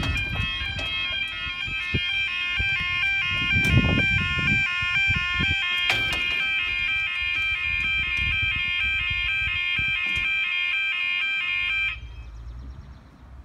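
Railway level crossing alarm sounding a loud, rapidly alternating two-tone warble as the barriers lower, then cutting off about twelve seconds in. Gusts of wind buffet the microphone.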